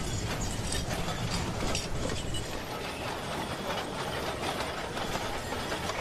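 Busy street noise thick with rapid mechanical rattling and clicking.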